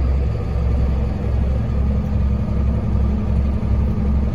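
Vertical mixer feed wagon and the tractor running it, working while the side discharge conveyor unloads ground hay feed into a feed bunk. It makes a loud, steady low drone that pulses slightly and unevenly.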